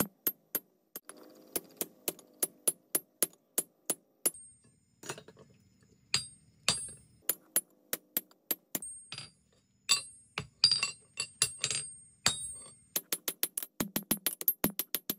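Hammer blows on a steel punch driven into a red-hot axe head on an anvil, punching the eye. Sharp, ringing metal-on-metal strikes come in quick runs of several a second, with short pauses between runs.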